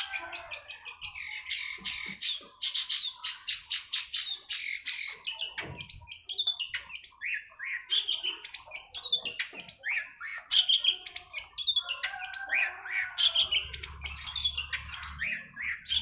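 Long-tailed shrike singing a fast, varied song of high chirps, chattering rattles and short downward-sliding whistles, with hardly a pause.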